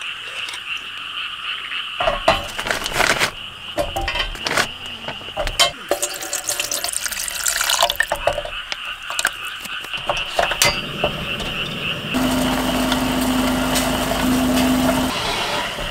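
Fish cake skewers being handled in a stainless steel pot of broth on a portable gas stove: scattered clinks and knocks of wooden skewers and utensils against the metal, then a few seconds of steady hiss from the simmering pot and burner near the end.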